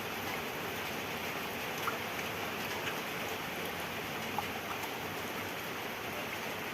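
Steady hiss of running or falling water, with a few faint ticks or drips.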